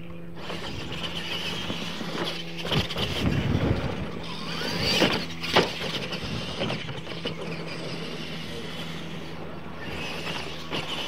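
Two radio-controlled Clod-style monster trucks racing on a dirt track: their electric motors whine and rise in pitch as they accelerate, with several sharp knocks as they bang over the ramps, the loudest about five seconds in.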